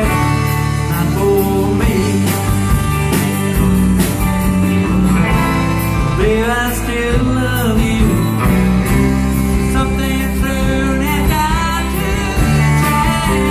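A country band playing, with guitar and a steady bass line; a melodic line bends and glides in pitch around the middle.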